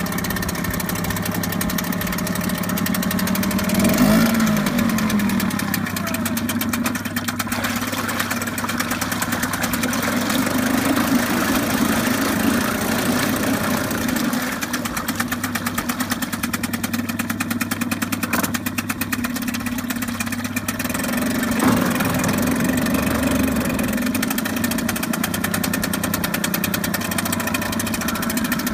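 Suzuki DT4 two-stroke single-cylinder outboard running in a test barrel of water, its revs rising and falling several times as the throttle is opened and closed. The propeller churns the water in the barrel.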